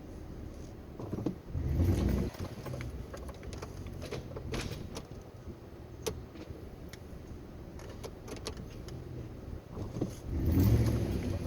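Ford F-150's 5.0-litre V8 engine running steadily while towing on a fallen tree with a strap, surging loudly twice under throttle, once early and once near the end, with a few small clicks and knocks between.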